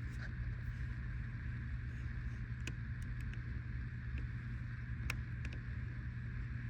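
A steady low hum under a band of hiss, with a few faint clicks.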